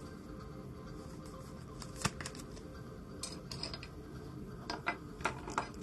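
Trading cards and plastic card holders being handled on a table: scattered light clicks and taps, one sharper click about two seconds in, then a run of quick clicks near the end.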